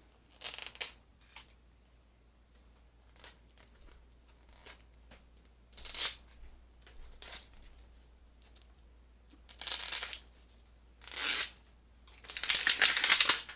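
Toy packaging being torn open and crinkled by hand in short, irregular bursts. The longest and loudest run of tearing comes near the end.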